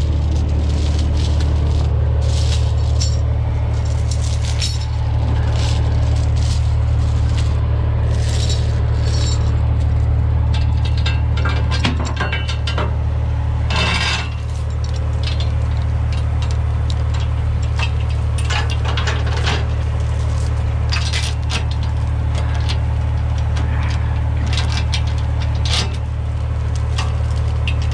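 Steel tow chains clinking, rattling and scraping as they are wrapped around a wheel-lift crossbar and hooked, in many short irregular clinks. Under them the steady low drone of the Peterbilt 337 tow truck's idling diesel engine.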